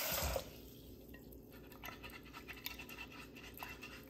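Tap water running into the pot cuts off about half a second in. Then a magic eraser scrubs faintly against the inside of a water-filled glass pot in short, irregular rubbing strokes, working off burnt stains.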